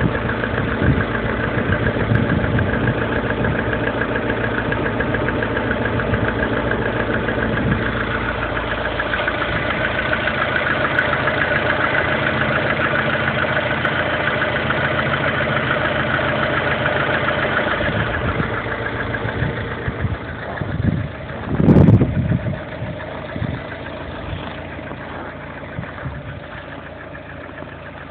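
Lada Kalina's 1.4-litre 16-valve four-cylinder engine running steadily, with the engine knock the owner is recording. About two-thirds of the way through it gets quieter, and a single loud thump follows a few seconds later.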